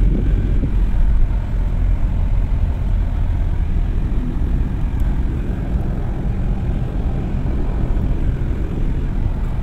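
Steady low rumble of a car's engine and tyres heard from inside the cabin while it is being driven.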